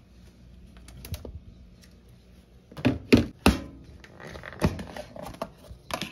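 Knocks and clicks of a plastic food container and its lid being handled: taken out, set down on a kitchen counter and opened. The loudest knocks come about three seconds in, with lighter clatter near the end.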